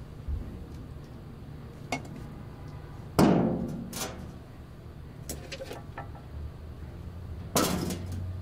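Glass jars and the lid of a wooden storage chest knocking as the jars are set down: two loud clunks with a short ringing decay, about three and seven and a half seconds in, with lighter clinks and taps between them.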